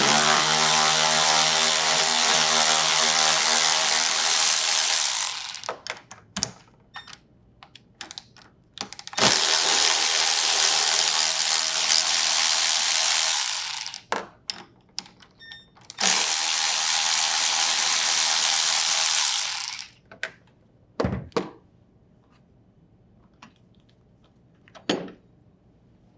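A 10 mm socket tool backs out the three bolts of a refrigerator's top door-hinge bracket. It runs in three long bursts of about four to five seconds each, one per bolt, with a few short knocks in between and afterwards.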